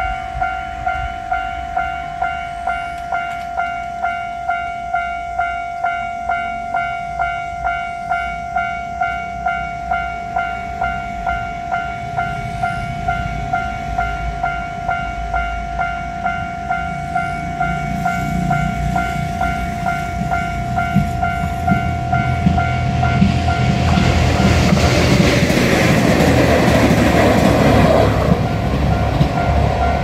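Japanese level-crossing alarm bell ringing in a steady, even clang a little over twice a second. From about halfway a train approaches and passes, its rumble and wheel noise loudest in the last few seconds. The bell stops just before the end.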